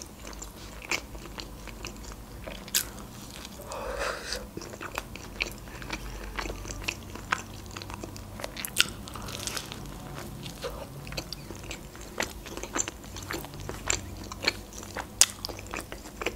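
Close-up biting and chewing of a crusty tombik döner sandwich: a string of crisp crunches and wet mouth clicks, with a short hummed murmur about four seconds in.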